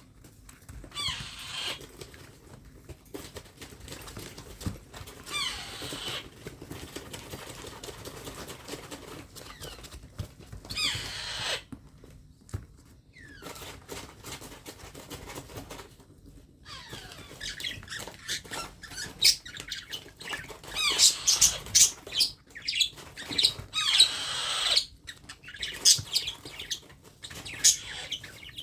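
Baby parrot chirping and squawking in short, high, falling calls, sparse at first and coming thick and loud in the second half.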